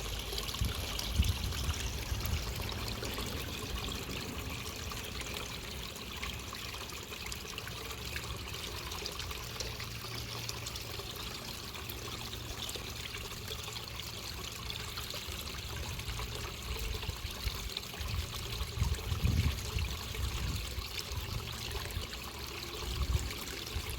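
Backyard pond waterfall running: a steady splashing trickle of water falling into the pond.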